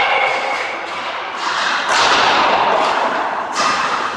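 Ice hockey shooting practice: a few sharp cracks of sticks striking pucks and pucks hitting the net and boards, each ringing out in the rink, over the scrape and hiss of skates on the ice.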